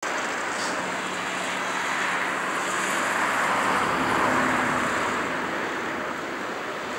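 Road traffic noise: a rushing hiss that swells to a peak about four seconds in and then eases off, as a vehicle passes.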